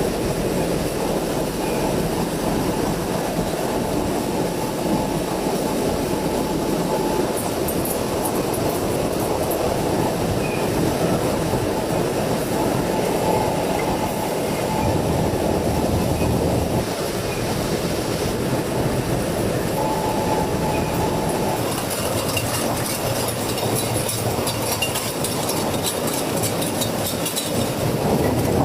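Processing-line machinery running with a continuous, steady rattling clatter.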